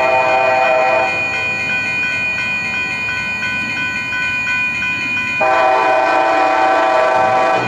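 Siemens SC-44 locomotive's horn sounding as the train approaches: one blast ends about a second in, and a second blast starts about two-thirds of the way through and holds.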